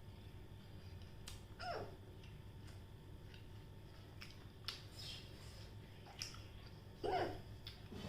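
A person hiccupping twice, once about two seconds in and again, louder, near the end. Faint clicks and mouth sounds fall between. The hiccups were brought on by eating hot chillies.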